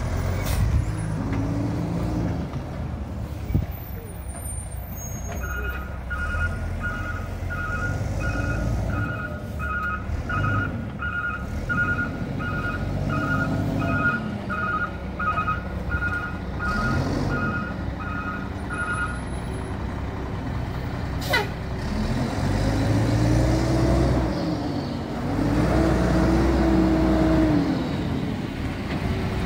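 Mack refuse truck's diesel engine running and revving up and down several times, with its reverse alarm beeping steadily, about one and a half beeps a second, for some fourteen seconds in the middle. A single sharp click about two-thirds through.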